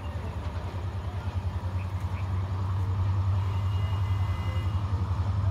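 Diesel locomotive hauling a train of oil tank wagons, its engine giving a deep, steady drone that grows louder as it approaches.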